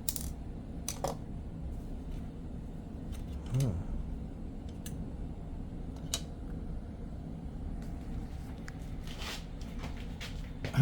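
Scattered small clicks and taps of tools and parts being handled while taking apart an all-in-one computer, over a low steady hum.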